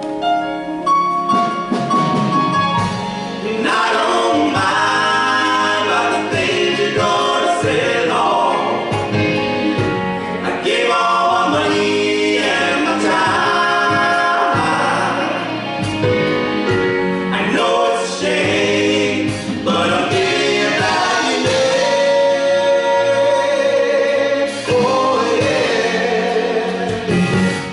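Live soul band with a male vocal group singing in harmony, several voices holding and bending notes together over keyboards, guitar and drums.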